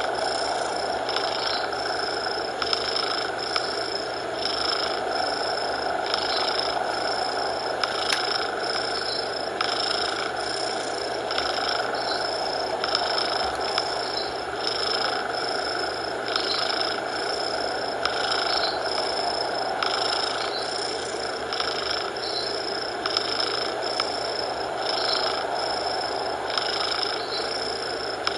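A cat purring close up, swelling and fading in an even rhythm about once a second with its breaths, over a steady bed of coloured noise.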